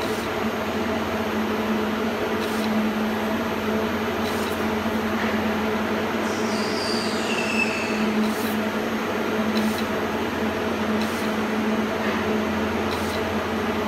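Automatic bag-labeling machine running: a steady motor and conveyor hum, with a light click every second or two as the applicator dispenses labels onto passing plastic bags. A brief high squeal about seven seconds in.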